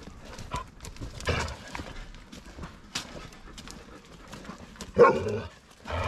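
Dog sounds with scattered soft scuffling, and a single loud bark about five seconds in.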